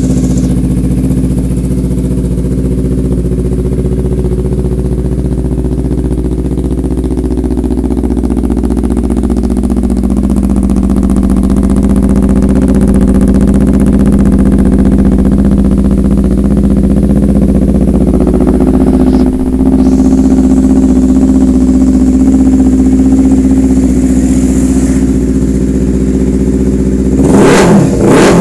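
Kawasaki Ninja motorcycle engine running steadily at a raised idle, its pitch edging up slightly partway through. Near the end the throttle is blipped and the engine revs up sharply several times in quick succession.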